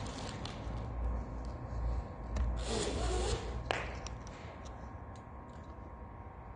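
Rustling and scraping, with a louder burst of rustle about three seconds in and a sharp click just after; quieter after that, with a few faint ticks.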